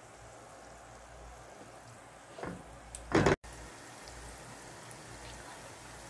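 Batata vadas deep-frying in oil over medium-low heat: a steady, gentle sizzle and bubbling. About three seconds in there is one brief louder sound, and the sound cuts out for an instant right after.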